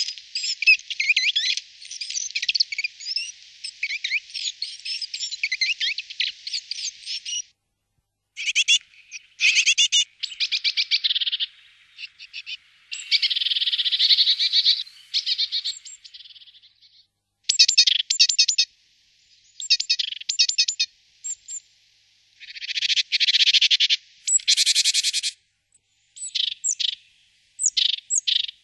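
Great tit (Parus major) calling: a long run of rapid, high-pitched chattering notes for the first seven seconds or so, then a string of short bursts of calls broken by brief pauses.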